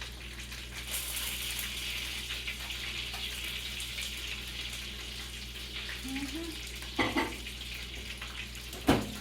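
Breaded chicken drummies frying in a skillet of oil, a steady sizzling hiss. Two sharp knocks near the end.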